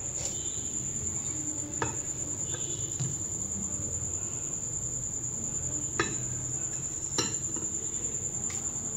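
A cricket chirping as a steady, high, fast-pulsing trill. A few light knocks of a grinder jar against a glass bowl as beaten egg and sugar is poured out.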